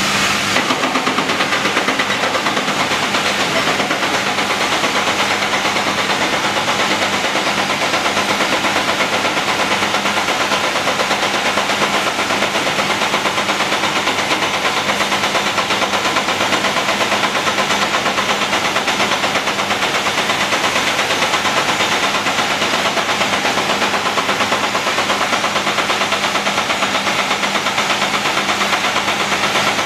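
Caterpillar 345C L excavator's diesel engine running steadily, with a fast, even beat.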